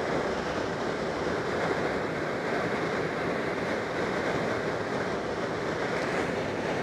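Steady rush of air around a glider's cockpit and canopy while it is towed behind a towplane, an even hiss with no distinct engine note.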